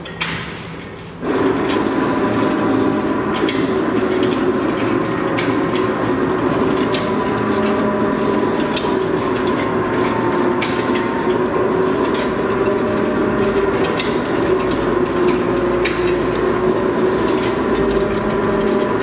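Polyethylene pipe coiler running, its servo-driven reel turning: a steady mechanical hum that comes up about a second in, with a click roughly every second and three-quarters.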